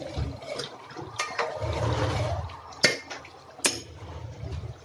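A spoon stirring thick chicken gravy in a cooking pot, scraping and sloshing, with a few sharp clinks against the pot.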